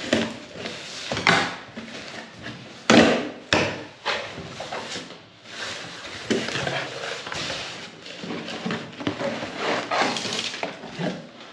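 Cardboard shipping box being opened by hand: scissors slitting the packing tape, then the flaps pulled back and the cardboard scraping and knocking as a shoebox is lifted out. Two sharp knocks stand out about three seconds in.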